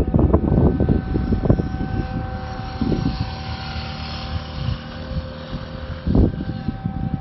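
Jet airliner engine noise: a steady whine, with a rushing swell about three to five seconds in, under heavy gusting wind rumble on the microphone.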